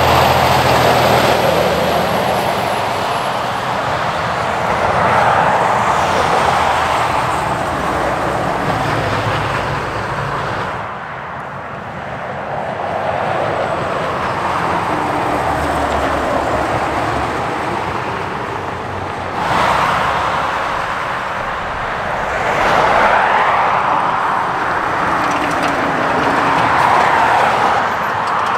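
Lorries and other traffic passing at speed on a dual carriageway: a steady tyre roar that swells and fades as one vehicle after another goes by, with a low engine drone from the heavier trucks. The sound changes abruptly twice.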